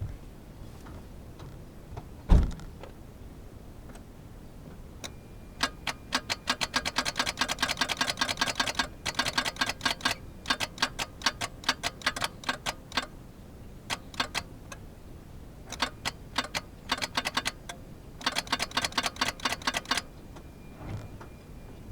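Geo Metro's starter solenoid chattering in several bursts of rapid clicking, about ten clicks a second, as the key is held in the start position. The starter never cranks the engine. A single thump comes about two seconds in.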